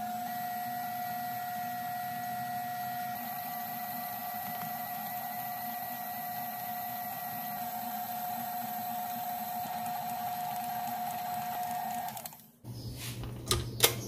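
KitchenAid Artisan stand mixer running steadily while its dough hook kneads bread dough: a motor hum with a steady high whine. It switches off about twelve seconds in, followed by a few sharp knocks.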